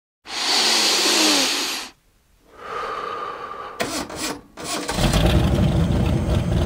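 Electric motor and drivetrain of an Axial A10 Deadbolt RC truck, picked up by its onboard camera: a brief whine and a few clicks, then a loud, steady low rumble from about five seconds in.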